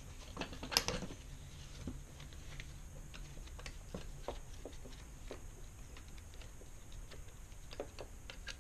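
Scattered light clicks and taps of a screwdriver and gloved hands working the screws of a 66cc motorized-bike engine's crankcase cover, with one louder clack about a second in.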